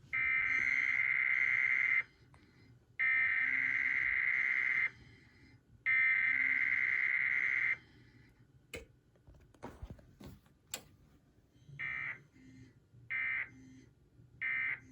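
EAS SAME data bursts from a TFT EAS encoder sending a Required Weekly Test. The header goes out three times as buzzy two-second bursts about a second apart, then the three short end-of-message bursts follow near the end.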